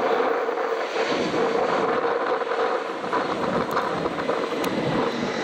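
Jet airliner's engines at takeoff power as it accelerates down the runway and lifts off: a steady rushing engine noise with a faint hum running through it.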